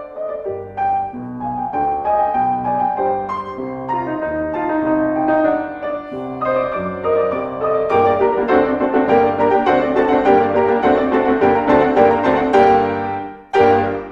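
Solo classical piano music, a flowing run of notes that grows fuller and louder about halfway through.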